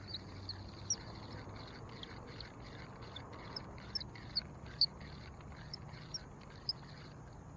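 Spinning reel being cranked to retrieve the line: a light, rhythmic whirring with small clicks and short high chirps, a few of them louder about halfway through.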